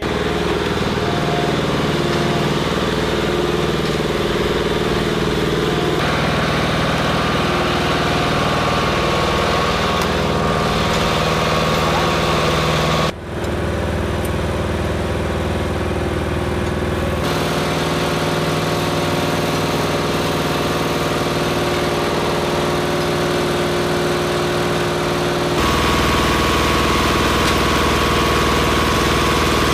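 An engine running steadily, its sound changing abruptly several times as one clip cuts to the next.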